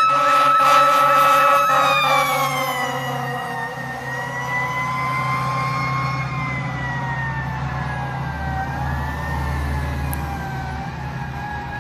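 Fire truck siren holding a high steady pitch for about two seconds, then gliding slowly down in pitch with a few small rises, over a low engine rumble.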